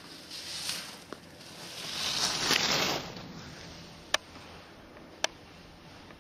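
Skis carving on hard-packed snow: a scraping hiss that swells and fades over about a second, two seconds in. Then three sharp clicks come about a second apart.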